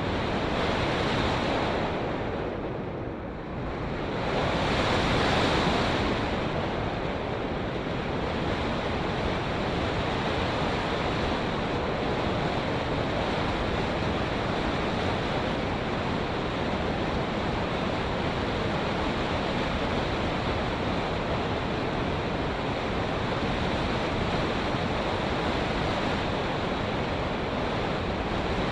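Airflow rushing over the microphone of a camera riding on a flying RC foam plane: a steady rushing noise that dips briefly about three seconds in and then swells back.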